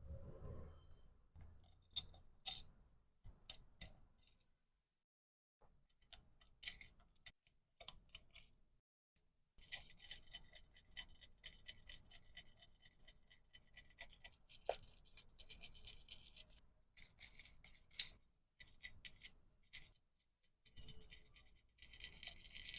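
Quiet hand-packing sounds: small plastic items and cards being handled, with scattered light taps and clicks. Two longer stretches of crinkling packaging come in the middle and near the end.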